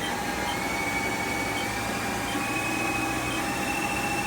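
Haas SL20T CNC lathe spindle running with a steady motor whine, stepping up in pitch about two seconds in as the spindle speed is changed.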